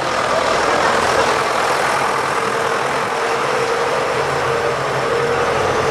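Farm tractor's diesel engine running steadily close by, a continuous engine drone with a held hum.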